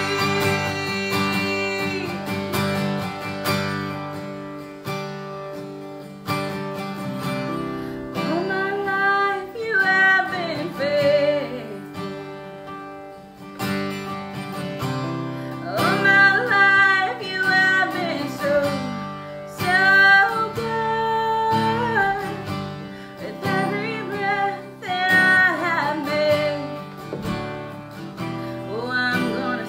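Strummed acoustic guitar accompanying a woman singing a slow worship song in phrases of long held notes with vibrato, the guitar carrying on alone in the gaps between phrases.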